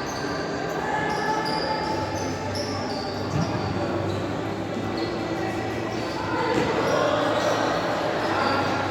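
Futsal being played in an echoing sports hall: rubber-soled shoes squeaking on the court, a ball struck once about three and a half seconds in, and players calling out.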